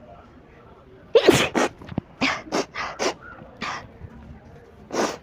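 A young woman sneezes loudly about a second in, set off by tickling her nose with a blade of grass. A string of short, breathy bursts follows.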